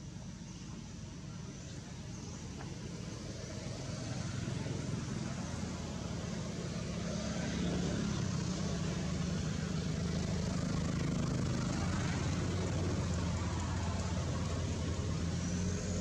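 An engine running steadily, a low hum that grows louder about four seconds in and then holds.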